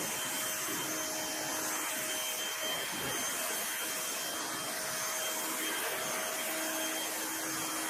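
Active 2.0 electric pressure washer rinsing a car hood through a spray gun: the water jet hisses steadily against the painted panel, with a faint steady whine in the noise.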